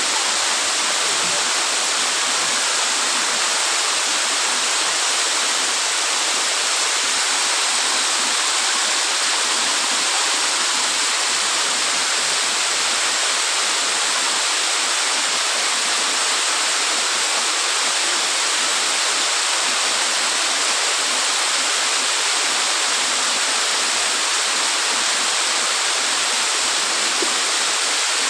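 Waterfall crashing steadily: an even, unbroken rush of falling water, strongest in the high and middle range, with no change throughout.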